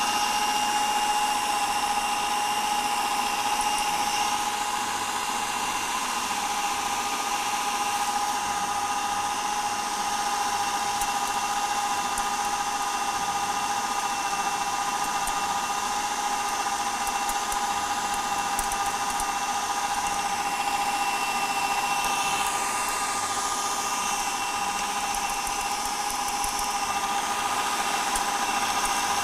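Electric food processor motor running steadily with an even high whine, mixing a dough.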